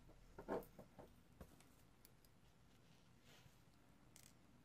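Faint clicks and taps of fingers handling small plastic and metal parts inside an opened tablet, with a short cluster of clicks about half a second in and a few lighter taps after.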